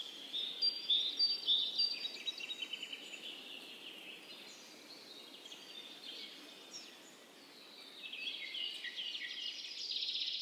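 Small birds chirping and twittering in a busy chorus over a faint outdoor hiss. The chirping is loudest in the first two seconds and again from about eight seconds in.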